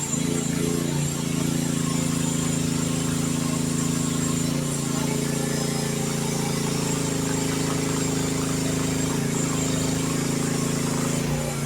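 Youtop YT15 mini excavator's engine running steadily at working speed.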